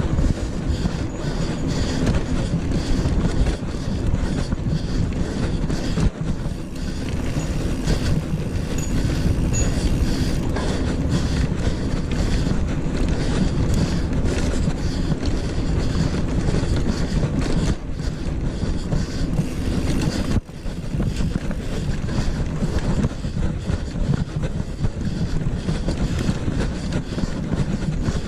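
Mountain bike rolling fast over rough packed dirt, its tyres rumbling and the bike rattling over bumps, with steady wind rushing over the action camera's microphone.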